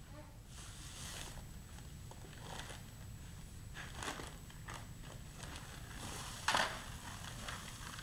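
Heavy paper sack of dry ready-mix concrete crinkling and rustling as it is handled and tipped over a plastic bucket, in short scattered crackles with one louder crunch about six and a half seconds in.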